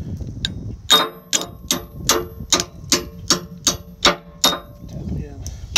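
About ten sharp, ringing metal-on-metal taps, roughly two and a half a second, stopping about four and a half seconds in: a steel punch being struck to drive the retainer down into place on a Cat K series bucket tooth.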